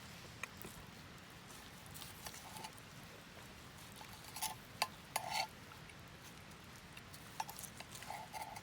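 Camping cookware and utensils being handled: a scattering of light clinks and taps, with a few brighter metallic clinks about halfway through and again near the end.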